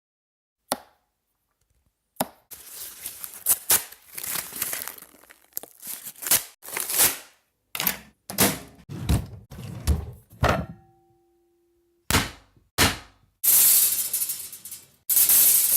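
Everyday objects being knocked, cracked and crumpled in a quick run of irregular impacts and noisy crunching bursts: raw sounds for building an explosion sound effect. A single sharp knock comes just under a second in, and a short steady tone sounds near the middle.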